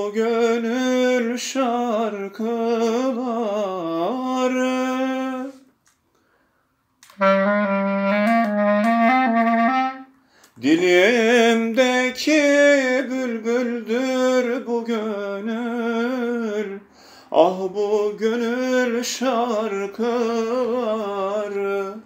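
A man singing a Turkish art song solo and unaccompanied, in long held phrases with vibrato and ornamented pitch turns. He pauses for breath about six seconds in, with shorter breaks later.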